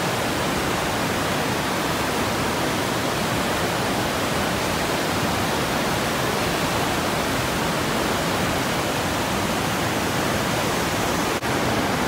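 River rapids in high water rushing over rocks: a steady rush of churning whitewater, with a momentary break near the end.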